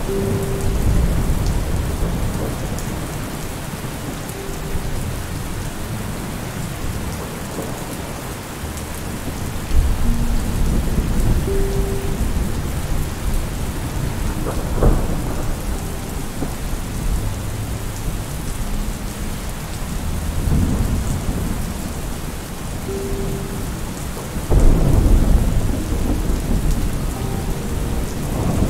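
Steady rain falling, with deep rumbles of thunder swelling up about ten seconds in and again near the end.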